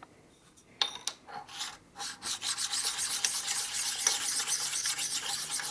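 Steel machinist's parallels being stoned on a honing stone to take off burrs and high spots. A clink about a second in, then quick, steady back-and-forth scraping strokes from about two seconds in.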